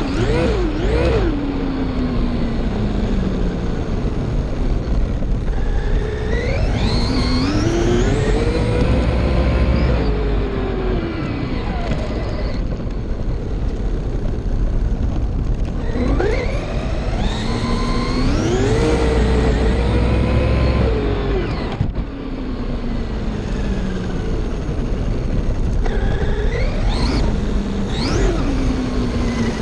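Electric motor of a Traxxas RC car on a 3S LiPo, geared 18/54, whining as it speeds up and then slows, three runs about ten seconds apart with the pitch climbing steeply and then dropping away. A steady low rumble sits underneath.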